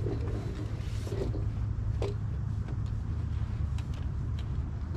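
A steady low engine drone runs throughout, with a few light knocks about two, four and four and a half seconds in.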